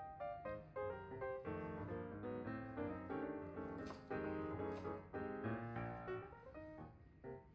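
Background piano music. Near the middle there is one short knock of a chef's knife chopping on a wooden cutting board.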